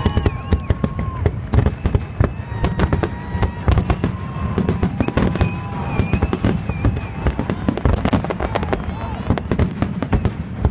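Aerial fireworks display: a rapid, unbroken string of bangs and crackles from bursting shells, with a few thin whistles held over them.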